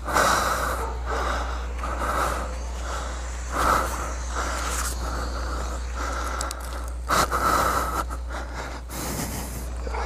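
Heavy, ragged breathing and wheezing close to the microphone, about one or two breaths a second: a motorcycle rider winded and in pain just after a crash.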